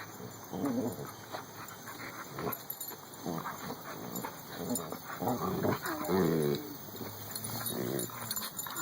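Dog vocalizing in a string of short pitched noises, the longest and loudest about six seconds in.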